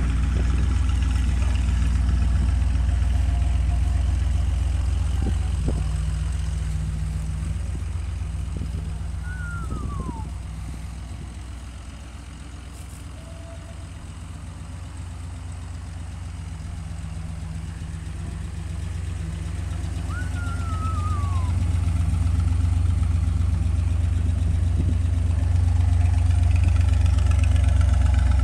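Chevrolet Corvette's 383 stroker small-block V8 idling steadily with no revving. It is louder near the rear exhaust and fades to about half as loud in the middle, where the car is passed at its front end. Two short falling whistles are heard, about ten seconds apart.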